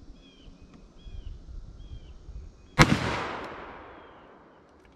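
A single shot from a Smith & Wesson 460 XVR revolver in .460 S&W Magnum, a little under three seconds in, with a long echoing tail that fades over about two seconds. A bird chirps repeatedly in the background.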